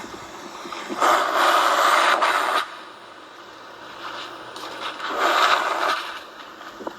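Designed dinosaur-call sound effect for a Carcharodontosaurus: two raspy, hissing growls, a longer one about a second in and a shorter one near the end.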